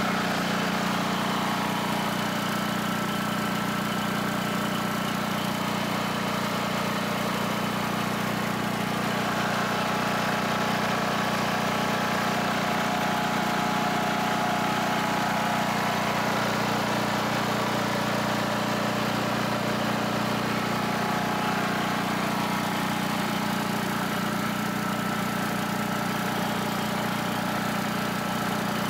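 Portable generator's Briggs & Stratton engine running steadily, powering a Speedaire air compressor that runs alongside it as it fills its tank.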